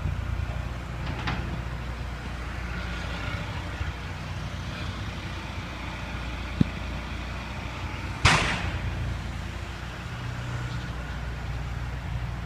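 Gas pressure washer engine running steadily, with a hiss in the background. A sharp click comes about two-thirds of the way through, followed shortly by a brief loud hissing burst that dies away within about half a second.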